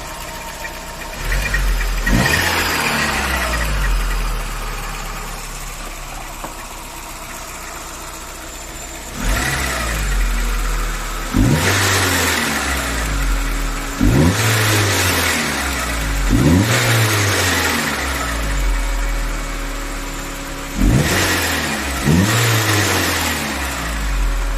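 VW AP 1.6 four-cylinder engine of a Saveiro G4 idling and revved in about seven short throttle blips, each rising and falling back to idle. It is being run to check for a noise that the owner suspects is the timing belt's plastic cover rubbing.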